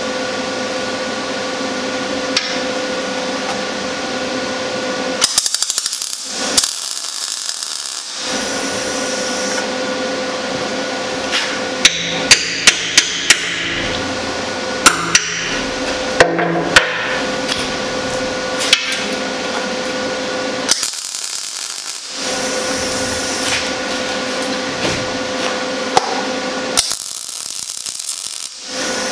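Sharp metal knocks on steel, hammer taps, in several short runs: a quick burst of about five strikes about twelve seconds in, then single strikes, over a steady hum.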